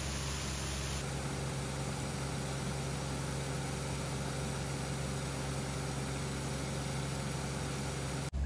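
Pumped water jetting out of a large discharge hose and splashing into a creek, a steady rushing spray over a constant low engine hum.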